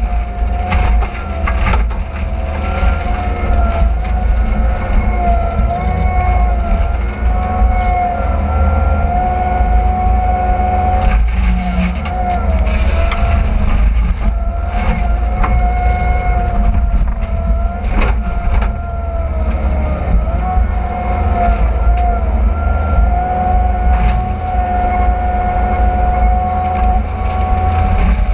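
AFE SS Series disc mulcher on a CAT 299D compact track loader running and chewing through brush and saplings: a deep diesel rumble under a steady high whine that sags and recovers a few times, with scattered sharp cracks and crunching of wood.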